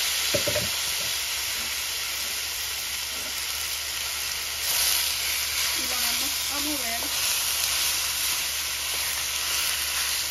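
Marinated chicken breast pieces sizzling in hot olive oil in a stainless steel pan, a steady frying hiss, while a spatula stirs them.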